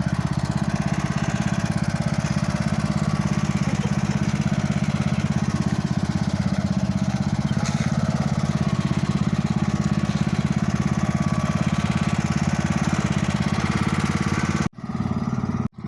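Small engine running steadily with a fast, even putter; the sound drops out briefly twice near the end.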